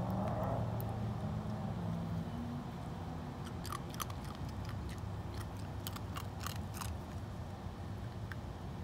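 Silver fox chewing food taken from a hand: a run of sharp, crunching clicks from about three and a half to seven seconds in. A steady low hum sits underneath.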